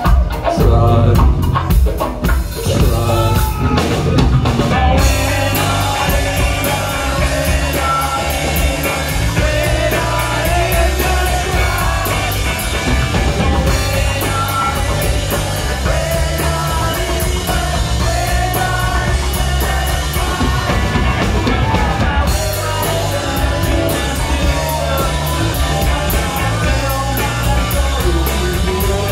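A live rock band playing loudly: electric guitars, bass guitar and a drum kit with a steady run of cymbal strokes.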